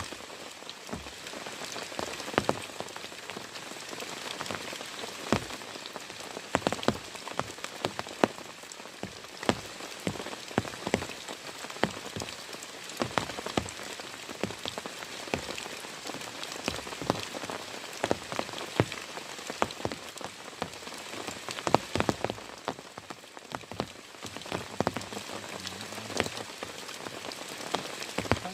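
Heavy rain falling steadily, with many loud individual drops striking close by at irregular intervals.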